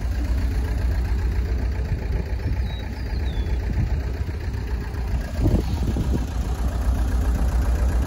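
Gehl skid steer's engine idling steadily with a low rumble.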